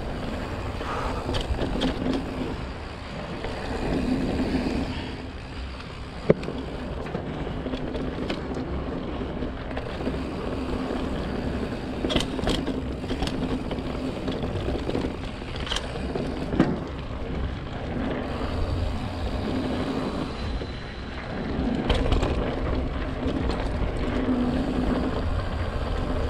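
Giant Stance full-suspension mountain bike riding over a dirt trail: steady tyre noise on dirt and leaf litter, with scattered rattles and sharp knocks from the bike over bumps, the loudest knock about six seconds in.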